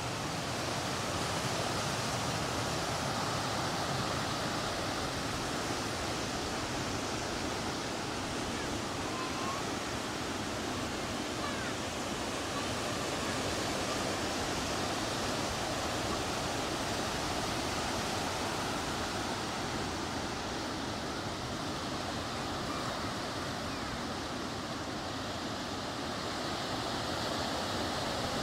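Steady, even rush of water noise, with no clear swells or breaks in level.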